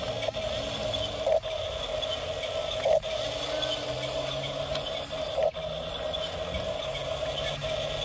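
Electric drive motors and gearboxes of an RC toy bulldozer whirring steadily as it crawls on its tracks, pushing gravel with its blade. There are brief louder moments about one and a half, three and five and a half seconds in.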